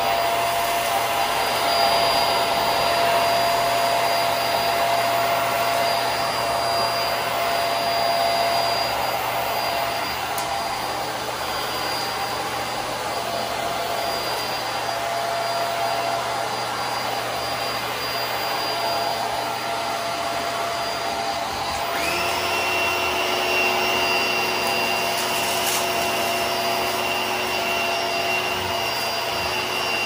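HART Pet Glide vacuum cleaner running steadily with a motor whine. About two-thirds of the way through, its sound changes suddenly and a new, higher whine sets in.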